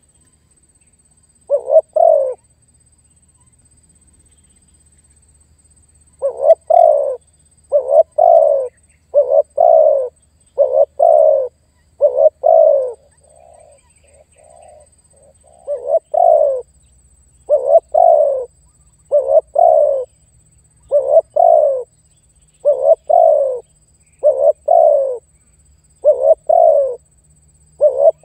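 Spotted dove (tekukur) cooing over and over. Each phrase is a quick double note followed by a longer falling coo, repeating about every second and a half, with a pause of a few seconds near the start and a softer run of notes about halfway through.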